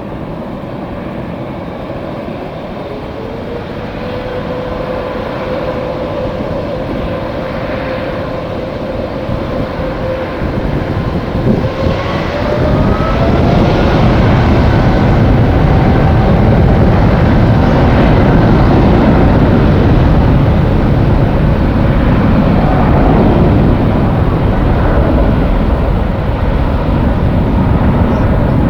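Jet airliner engines: a steady whine that glides up in pitch about eleven seconds in as the engines spool up, followed by loud, sustained engine roar.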